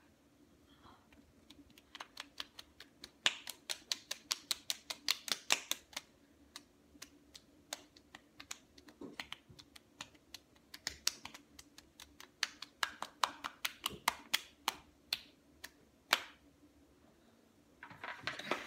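Open hands slapping bare cheeks over and over: a rapid run of sharp smacks, several a second, that stops about sixteen seconds in. A short noisy burst comes near the end.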